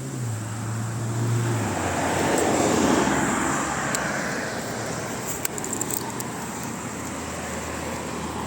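A motor vehicle passing by: engine and tyre noise swell to a peak about three seconds in, then fade away.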